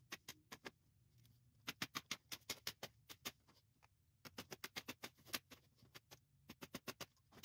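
Rapid light hammer taps on a Model T rear wheel hub, in runs of about seven sharp strikes a second with short pauses between runs, working a stuck wooden-spoked wheel loose from the hub.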